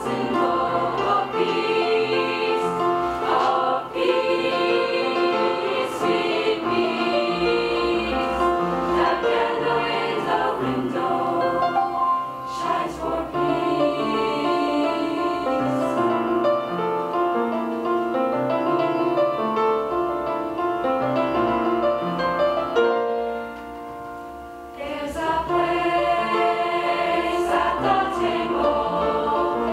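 Mixed-voice choir singing in harmony, with chords held about a second each. About three-quarters of the way through it drops briefly to a soft passage, then returns to full voice.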